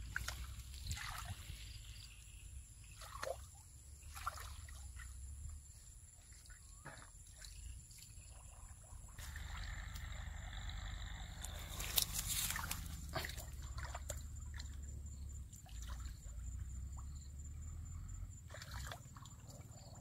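Hands groping and splashing in shallow muddy water, making irregular sloshes and trickles, with the loudest splash about twelve seconds in.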